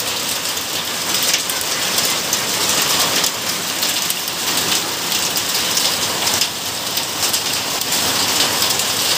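Hail and heavy rain pelting down on hard surfaces: a loud, steady, dense patter of many small hits.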